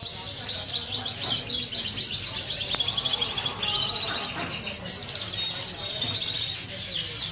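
Parisian frill canary singing: a continuous high-pitched song of rapid trills and rolling chirps, with a brief held whistle a little past halfway.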